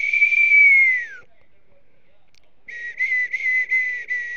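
Wolf whining: one long high-pitched whine that falls away at its end, then, after a short pause, a broken, stuttering whine at the same pitch.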